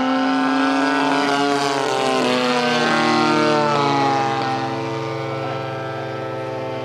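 DLE-30 single-cylinder two-stroke petrol engine of a radio-controlled Sbach aerobatic plane running in flight, its propeller note holding steady with a brief waver in pitch about two to three seconds in, then going a little quieter after about four seconds.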